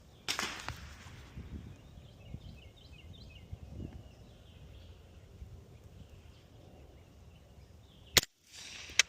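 Suppressed B&T 9mm firearm firing three shots: one just after the start that trails off into a hiss, then two sharp cracks near the end, less than a second apart. Faint bird chirps can be heard in between.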